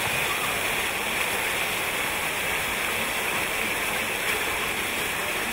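Jets of a plaza fountain shooting up from nozzles in the paving and splashing back down: a steady rush of falling water.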